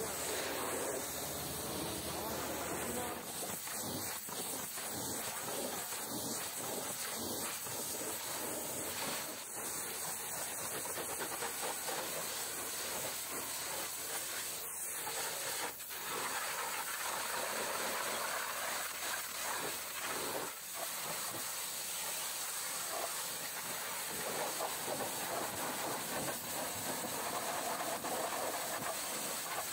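High-pressure washer jet spraying steadily, a continuous hiss of water, with a couple of short dips.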